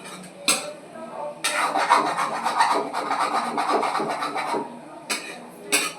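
A spoon or spatula scraping and stirring in a cooking pan for about three seconds, with a few sharp clinks against the pan before and after.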